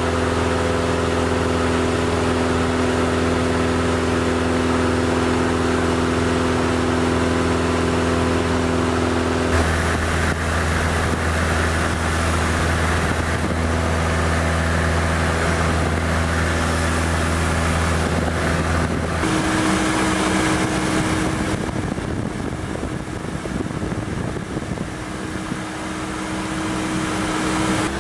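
Cessna 172 floatplane's piston engine and propeller running steadily in cruise, heard from inside the cabin. The engine tone shifts abruptly about ten seconds in and again near twenty seconds, as the footage cuts between flights.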